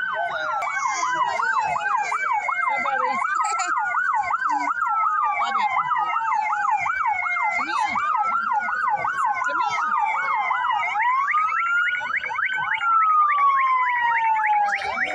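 Emergency-vehicle sirens sounding together: a slow wail rising and falling every few seconds over a fast yelp of about three to four sweeps a second.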